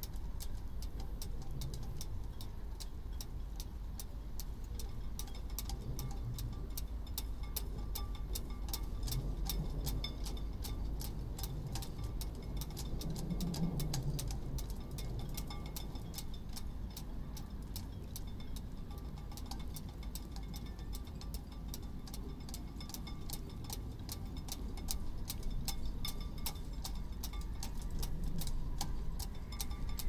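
Sailing-boat rigging line tapping against the mast in a mild wind: light, quick ticks, about three a second, over a low wind rumble.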